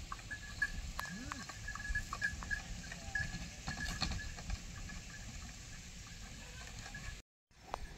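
A wooden bullock cart drawn by two bullocks rolling along a dirt field track: the cart rattles and knocks steadily, with a short low call about a second in. The sound cuts out briefly near the end.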